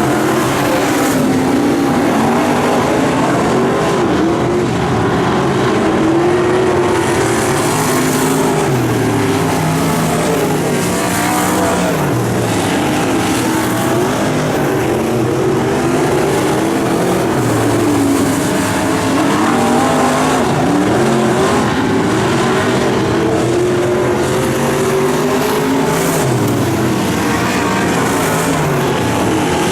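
Several dirt-track race cars running laps together, their engines overlapping and repeatedly rising and falling in pitch as they accelerate down the straights and lift off into the turns.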